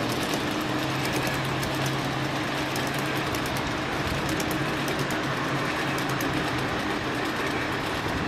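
G-scale garden railway train running on its track: a steady whir of its electric motor and gearing, with fine clicking of the wheels on the rails.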